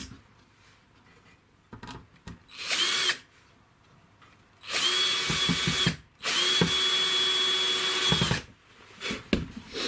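Power drill with a screwdriver bit driving wood screws into the slats of a wooden frame: a short spin, then two longer runs of a steady motor whine, each cutting off abruptly.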